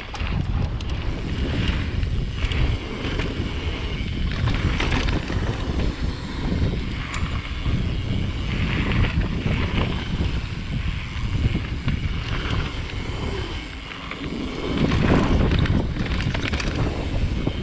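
Wind buffeting the action camera's microphone, mixed with mountain-bike tyres rolling over a dirt and gravel trail on a fast descent. The rush gets louder about fifteen seconds in.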